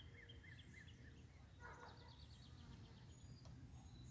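Faint songbirds singing over a low steady background rumble. One bird repeats a wavy, warbling note in the first second and a half, another gives a fast trill around two seconds in, and short high chirps come and go.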